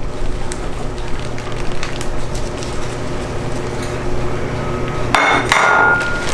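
Flour-and-breadcrumb breading being dumped from a container into a plastic bag of chicken tenders, with light clinks and scrapes, over a steady low hum. About five seconds in there is a short, loud rustle as the bag is handled.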